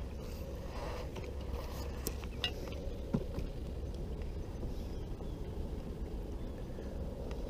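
Light clicks and knocks of a landing net and rod being handled as a crappie is netted at the side of a kayak, over a steady low rumble with a faint steady hum.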